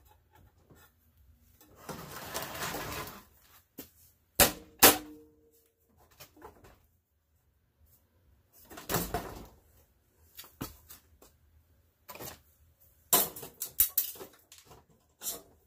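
Steel computer tower case being tugged and shifted by hand: scraping slides, two sharp knocks about four and a half seconds in with a brief metallic ring, and a quick run of clatters near the end. The case shell is stuck, still held by a screw that was missed.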